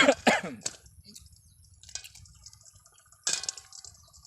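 Wet mouth sounds of eating raw small shore crab (talangka) soaked in vinegar: a loud slurp at the start, small wet clicks, and another wet sucking burst near the end.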